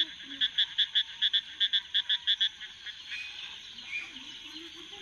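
Frog calling in a fast, even series of short croaks, about five a second, which stops about halfway through.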